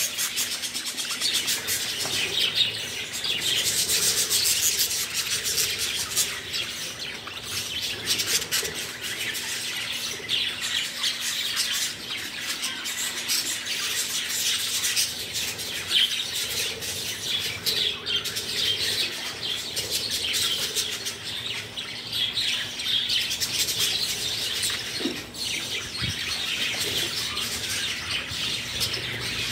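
A flock of budgerigars chattering and chirping continuously, with many quick small clicks of beaks pecking at seed in a feed bowl.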